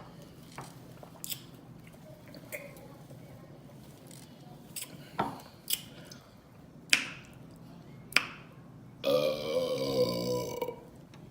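Eating sounds, a scatter of sharp wet mouth clicks and smacks, followed about nine seconds in by a long burp lasting nearly two seconds.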